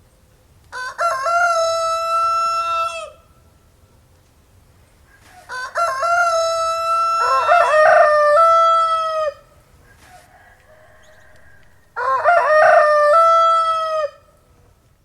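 Rooster crowing three times, each crow a few seconds long and ending in a long held note. A second crow overlaps the middle one.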